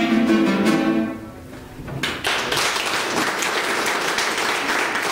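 A clarinet and a plucked string instrument play the last notes of a tune, which ring off about a second in. After a short pause, audience applause starts about two seconds in and carries on.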